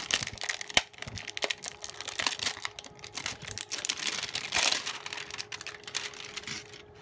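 Clear plastic shrink wrap crinkling and crackling as it is peeled and pulled off a Poopsie Slime Surprise tub, with a sharp click about a second in.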